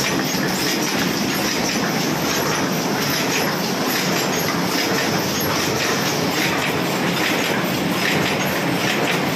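High-speed paper cup forming machine running, a steady dense mechanical clatter without pauses.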